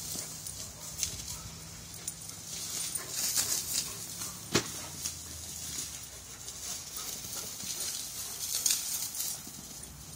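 A Greater Swiss Mountain Dog and a smaller tan dog play-fighting and chasing through grass and shrubs: irregular scuffling and rustling, with a sharp knock about four and a half seconds in.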